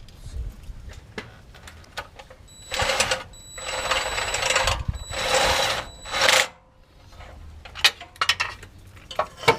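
A power tool running in four bursts of about half a second to a second, with a steady motor whine, as heat-shield bolts are driven in. A few sharp metallic clicks follow near the end.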